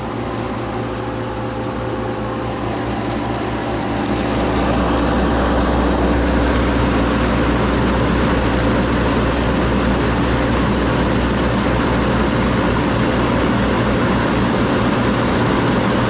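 1963 General Electric Thinline through-the-wall air conditioner running on high, heard close to its coil: a steady rush of fan airflow over a low compressor hum. It swells about four seconds in and then holds steady.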